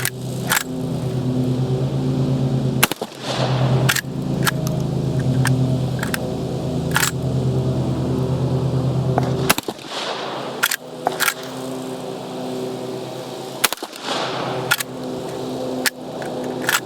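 Century Arms PW87 lever-action 12-gauge shotgun fired several times with military buckshot, spaced a few seconds apart, with the lever clacking as it is worked between shots. A steady engine hum runs underneath and cuts out about two-thirds of the way through.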